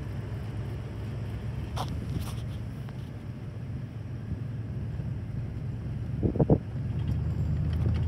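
Toyota Tundra pickup driving along a sand track, a steady low engine and tyre rumble with a few light clicks. About six seconds in there is a brief louder thump, and the engine note firms up slightly just after.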